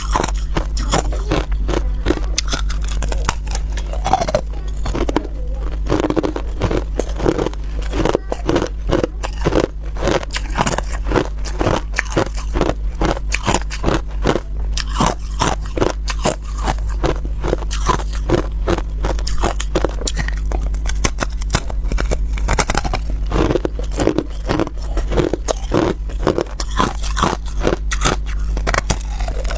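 Crushed ice being bitten and chewed close to the microphone: a continuous stream of crisp crunches and cracks, over a steady low hum.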